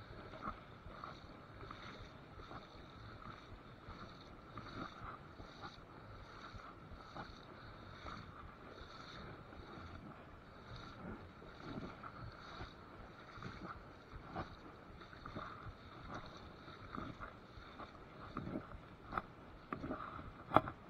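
Shallow river water running steadily over a gravel riffle, with a few short knocks and one sharp knock near the end.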